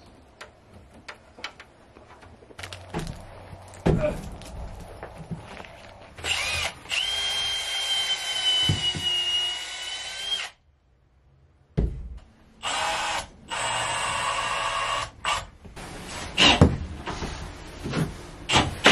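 Cordless drill running into a wooden roost branch: one long run of about four seconds with a steady high whine, then two shorter runs after a brief silence. Sharp knocks of wood and tools come between the runs.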